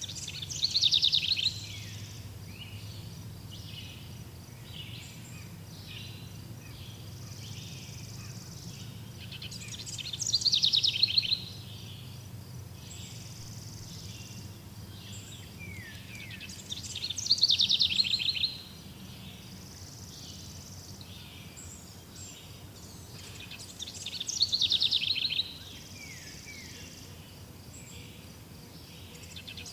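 A songbird repeats a loud, fast trilled phrase that falls in pitch, four times, with several seconds between phrases. Fainter chirps come between the phrases over a steady low background hum.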